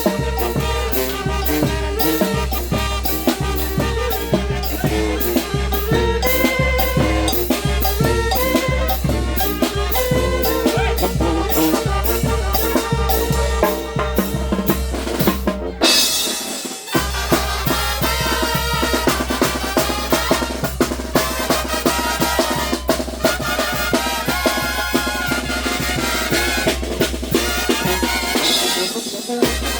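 A Mexican banda brass band playing an upbeat piece, with brass over a strong bass line and a steady drum beat. The band stops for a moment about halfway through, then comes back in.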